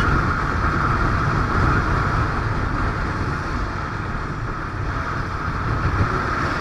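Royal Enfield Bullet 350's single-cylinder engine running steadily at road speed, heard with a constant rush of wind on the helmet-mounted microphone.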